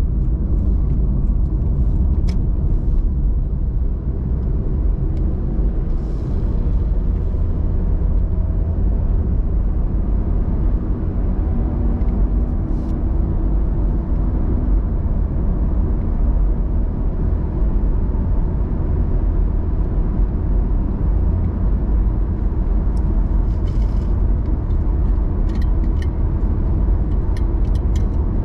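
Steady low road and tyre rumble of a car cruising on a highway, heard from inside the cabin, with a faint rising engine note about ten seconds in.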